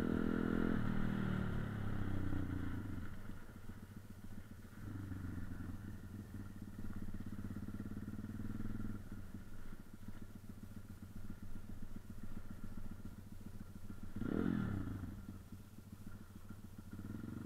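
Motorcycle engine running under way at low speed, the throttle opened and eased off several times. There is one quick sharp rev that rises and drops back about fourteen seconds in.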